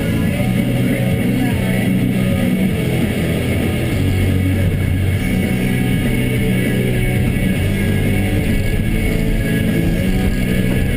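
Rock music with guitar over the steady running of a Volvo EC210 excavator's diesel engine.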